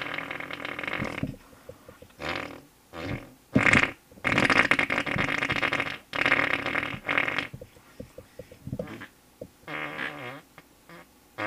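A string of fart noises: several short blasts and sputters, with two long drawn-out ones in the middle that are the loudest, and smaller sputters near the end.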